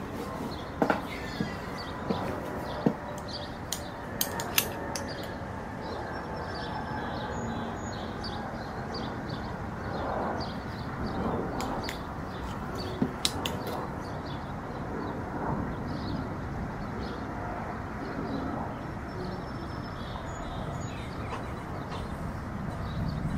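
Faint bird chirps over steady background noise, with a few sharp knocks in the first five seconds from a wooden rolling pin on the table and a couple of clicks about thirteen seconds in from a utensil against a glass mixing bowl.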